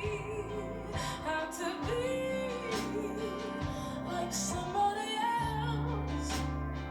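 Slow soul ballad: a female voice sings long, bending phrases without clear words over sustained chords and bass.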